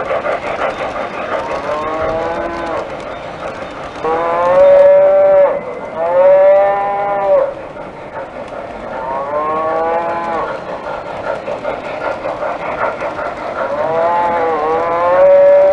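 Recorded cow moos played as a sound effect: about five drawn-out moos, the loudest around four and six seconds in and again near the end. Underneath runs a steady rumbling noise of model trains on the track, strongest at the start.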